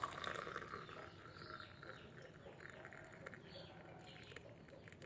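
Boiled ginger water being poured from a pan into a glass: a splashing pour, loudest in the first second and tapering off.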